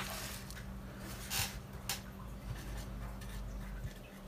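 Marker and zip-top plastic bag handled on a tabletop: a few short clicks and crinkles over a steady low hum, with a felt-tip marker starting to write on the plastic bag near the end.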